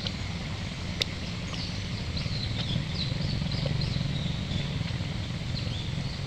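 Outdoor forest ambience: a steady low rumble with a run of short high chirps through the middle, and a single sharp click about a second in.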